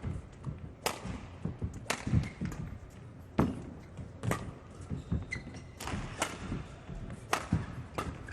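Badminton rally: racket strings hitting a shuttlecock, a sharp crack about every one to one and a half seconds, with lighter thuds of players' footwork on the court between the shots.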